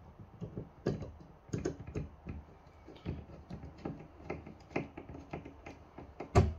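Small screwdriver turning screws into an airsoft pistol's plastic frame: a run of irregular light clicks and taps, with one louder knock near the end.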